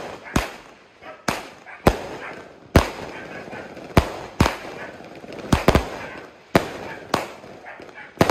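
A 4-inch 25-shot firework cake firing a rapid run of sharp bangs, about two a second and some in quick pairs, with a rough hiss between the shots.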